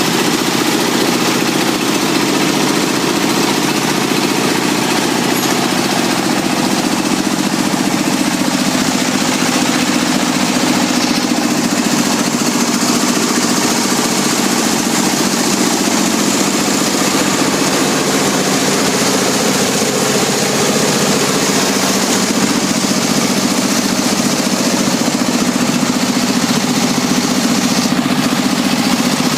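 Rice milling machine running steadily: a loud, even drone with a constant hiss over it.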